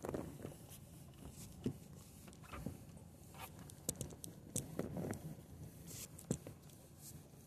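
Faint, scattered clicks and rustles of handling and clothing noise inside a vehicle cab.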